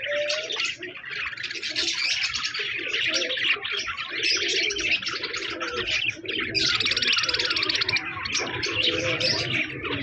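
A flock of budgerigars chattering and warbling continuously, many birds at once. A rapid buzzing call rises above the chatter for over a second, about six and a half seconds in.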